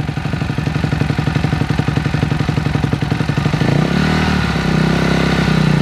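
Honda CRF250R dirt bike's single-cylinder four-stroke engine idling with an even beat, then revving up about four seconds in and holding at higher revs as a beginner opens the throttle to try to pull away.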